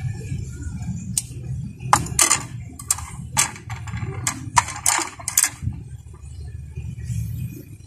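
Fishing rod being set down and shifted on a plastic digital kitchen scale: a dozen or so light, sharp clicks and knocks of the rod's grip and reel seat against the scale's platter, between about one and five and a half seconds in. A low steady background rumble runs underneath.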